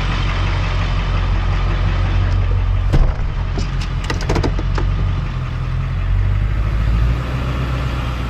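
Pickup truck engine running with a steady low hum heard from the cab, its note shifting a couple of times. A few sharp clicks come about halfway through.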